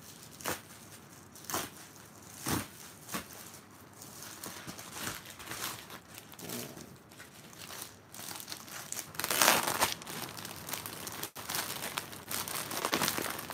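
Clear plastic card sleeves and their wrapping crinkling as they are handled. A few sharp crackles come first, then denser crinkling, loudest about two-thirds of the way through.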